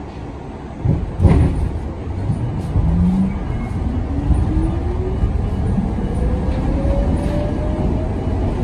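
Budd R32 subway car pulling out of a station: a clunk about a second in, then its traction motors whining steadily higher in pitch as the car accelerates, over a low rumble of wheels on rail.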